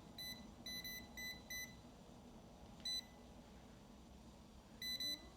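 Non-contact voltage tester giving short, high-pitched beeps: a quick run of them in the first couple of seconds, one just before three seconds in, and another near the end. The beeping is its signal that it senses live AC voltage.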